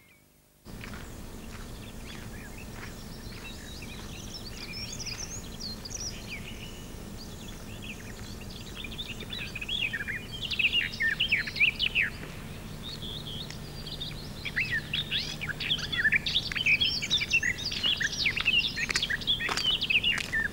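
Several wild songbirds chirping and trilling over a steady outdoor background, sparse at first and much busier from about ten seconds in. The background comes in suddenly just under a second in, and a faint low hum runs underneath.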